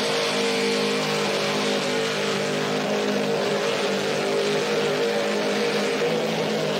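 Supercharged big-block Chevy V8 in a Ford F-100 pickup held at steady high revs through a burnout, spinning the rear tyres, with a rushing noise over the engine.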